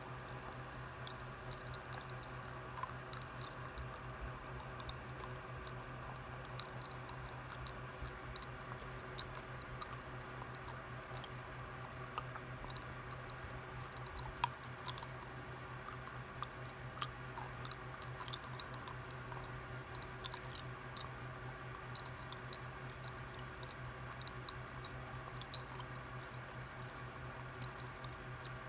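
Irregular small clicks and ticks, several a second, over a steady low hum.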